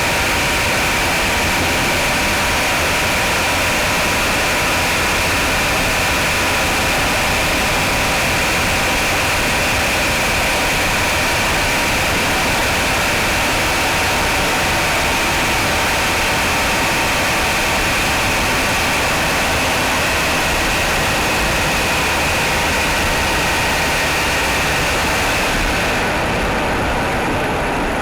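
Mitsubishi Outlander's 4G63 four-cylinder engine running steadily at idle, heard close up, with a steady high whine over the engine noise. The engine is one whose owner hears knocking on cold start.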